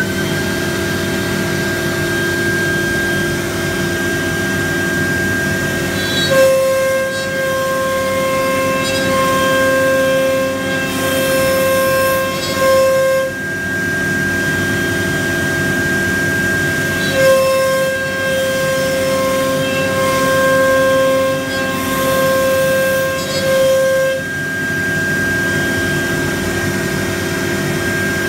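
Techno HD CNC router spindle running at a steady high-pitched whine while cutting MDF, over a steady rush of dust-collection noise. About six seconds in, and again at about seventeen seconds, a lower pair of tones joins for about seven seconds each, then drops out.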